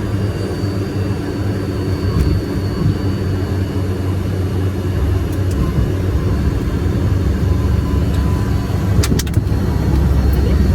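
Cockpit noise of a Cessna Citation 501, its Pratt & Whitney JT15D turbofans running with a steady low rumble and hum that grows a little louder in the second half. A few sharp clicks about nine seconds in.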